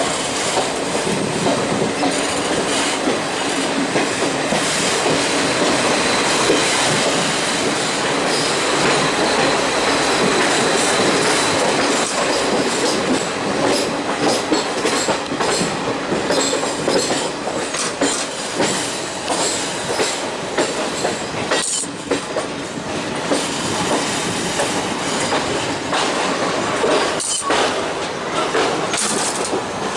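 Passenger train coaches running on a curving mountain line, heard from an open coach door: a steady rumble of wheels on the rails with repeated clicks over the rail joints, and wheels squealing on the curves.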